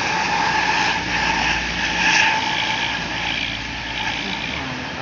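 Primajasa intercity coach passing close by: engine and tyre noise with a steady high whine, loudest about two seconds in, then fading as the bus moves away.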